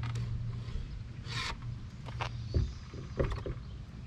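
Scattered light knocks and a brief rustle from a spinning rod and kayak gear being handled, over a low steady rumble.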